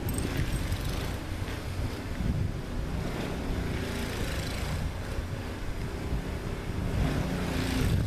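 Wind buffeting the microphone: a steady low rumble that swells and eases, a little stronger near the end.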